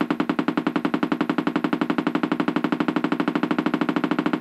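Loudspeaker of a homemade vortex ring generator, driven by a sawtooth wave, popping out a rapid, even train of air puffs, each one firing a smoke ring.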